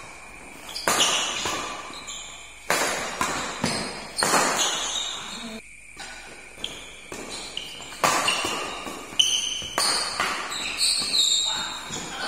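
Badminton rackets smacking a shuttlecock back and forth in a doubles rally, sharp hits every second or two, each echoing in a large hall.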